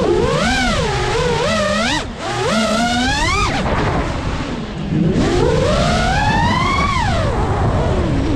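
Brushless motors and propellers of a 5-inch FPV freestyle quadcopter whining, the pitch swooping up and down with the throttle. The whine drops away briefly about two seconds in, then climbs steeply from about five seconds in and falls off near the end.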